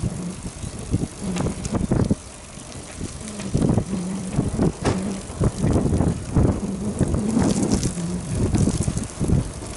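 Bicycle being ridden, heard from a camera fixed to the bike: irregular knocks and rattles from the road over a low rumble, with a low hum that comes and goes.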